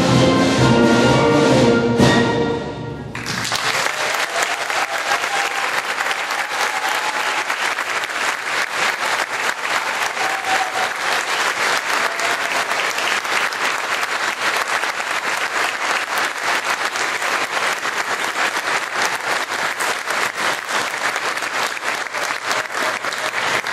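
A school symphony orchestra, strings and brass, plays the closing chord of a march, cut off about two seconds in. After a brief gap, the audience breaks into steady applause.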